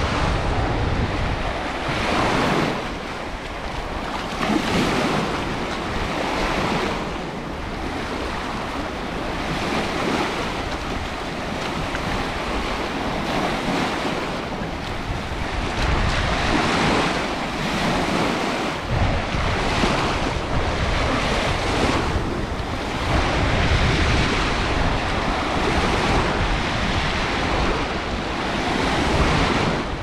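Sea waves breaking and washing up a sandy beach, surging every few seconds, with gusts of wind rumbling on the microphone.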